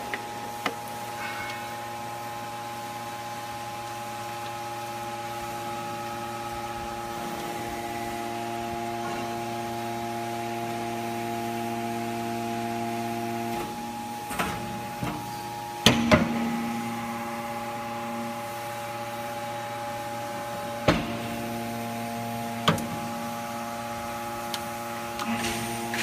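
Hydraulic power unit of an Enerpat T125 three-ram scrap metal baler running with a steady tonal hum, which changes about halfway through as the rams change stroke. Sharp metal clunks come about two-thirds of the way in, a few seconds later, and in a cluster near the end.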